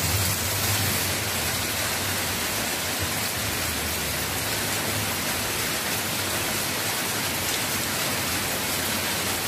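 Heavy rain pouring steadily, a dense, even hiss of falling water.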